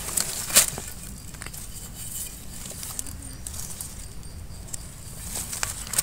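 Dry leaf litter and twigs crackling and rustling as a wild mushroom is dug out of the forest floor by hand and knife, with a sharp crackle about half a second in and another cluster near the end.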